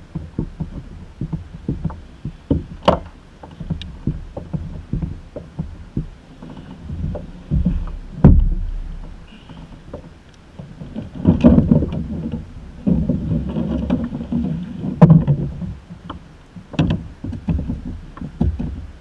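Irregular knocks, thumps and rustling as a landing net, fish grip and a freshly caught fluke are handled against a plastic kayak, with a heavy thump about eight seconds in and clusters of knocking around eleven and fifteen seconds.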